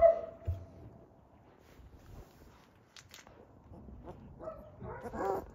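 Three-week-old German Shepherd puppies whimpering: a short whine right at the start, then several wavering whining cries near the end.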